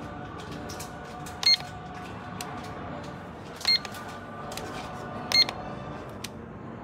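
Electric kettle's control-panel beeper sounding three short electronic beeps about two seconds apart, with light clicks and taps between them.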